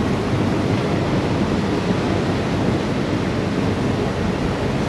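Steady rushing noise of wind and water with a low rumble, heard on board a motorboat.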